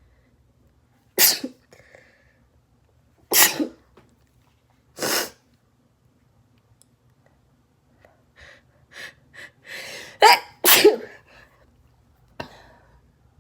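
A person sneezing: three sneezes about two seconds apart, then a few short breathy gasps building up to two loud sneezes in quick succession.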